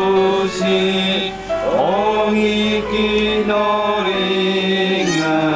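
Slow, chant-like singing in long held notes that glide up or down from one pitch to the next.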